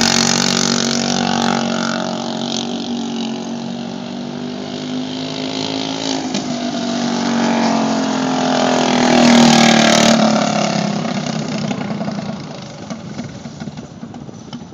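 Dirt-oval kart's Briggs & Stratton Animal single-cylinder four-stroke engine running hard through practice laps, its pitch rising and falling through the turns. It is loudest as the kart passes close about nine to ten seconds in, then fades as it pulls away down the track.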